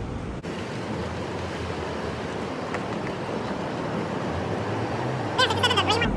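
Steady rushing background noise, with a short pitched sound about five and a half seconds in.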